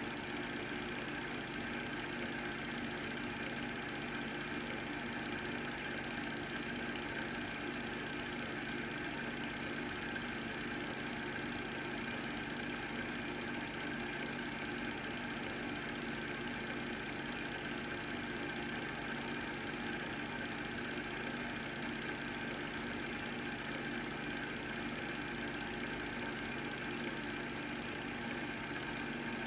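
Home movie projector running, a steady mechanical hum from its motor and film drive with no change.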